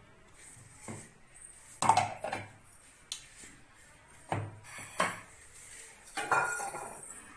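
Steel mixer-grinder jar handled on a kitchen counter: ingredients dropped in and the lid pressed on, giving about six separate knocks and clinks of metal, the loudest about two seconds in.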